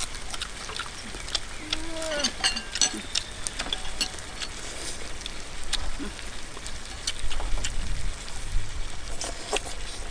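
Beef sizzling and crackling in a pan on a portable gas stove, with scattered clicks and clinks of chopsticks and spoons against bowls.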